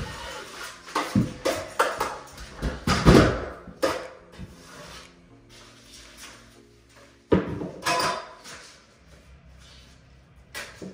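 Drywall finishing work: a tool scraping joint compound over paper tape in an inside corner, mixed with knocks and clanks from the aluminium stepladder and tools, and a sharp knock about seven seconds in.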